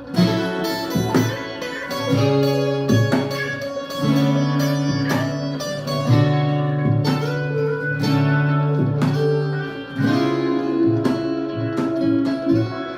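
Instrumental music led by guitar: a run of plucked notes and chords with no singing.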